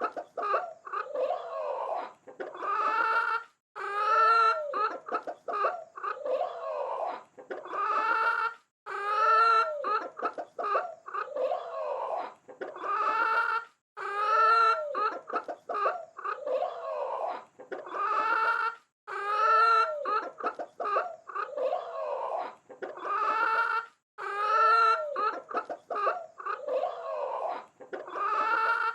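Chickens clucking and squawking in a run of repeated calls, each about a second long with short pauses between, each call rising and then falling in pitch.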